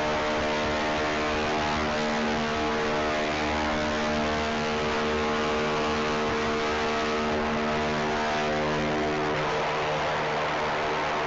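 Coaxial rotors of the Mars Helicopter engineering development model spinning in a thin, Mars-like atmosphere inside a test chamber: a steady pitched buzz over a hiss. About nine and a half seconds in, the tone shifts and fades as the helicopter descends to land.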